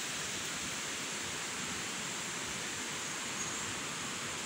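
Steady, even rushing noise with no distinct events in it, like running water in the background.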